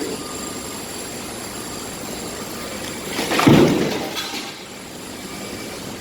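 A section of concrete block wall hitting the ground after a 45 ft fall: one loud crash about three and a half seconds in, dying away within about a second.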